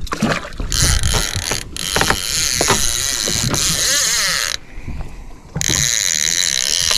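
Fishing reel spool spinning and paying out line fast as a released grouper is sent back down on a descending device to relieve barotrauma, in two long runs with about a second's pause in the middle.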